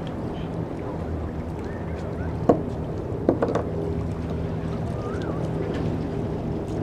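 Steady low engine drone of a boat running at idle over wind and water noise, with a sharp knock about two and a half seconds in and a short cluster of knocks about a second later.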